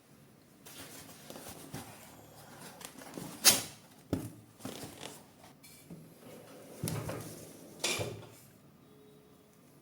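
Parts and tools being handled during 3D printer assembly: rustling with about five sharp clicks and knocks, the loudest about three and a half seconds in.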